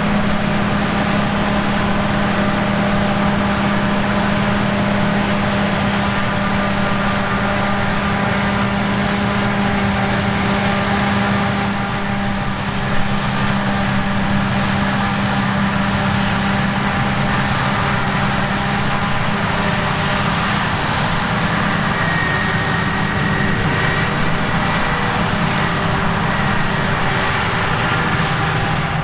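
Claas Lexion 780 TT combine harvester running steadily: a deep, even engine hum with a thin high whine over it, and a single sharp knock about thirteen seconds in.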